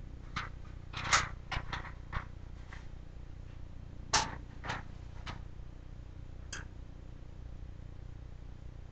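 Small objects being handled on a shelf: a scattered series of light clicks, taps and knocks, the loudest about a second in and about four seconds in, and a brief bright clink about six and a half seconds in.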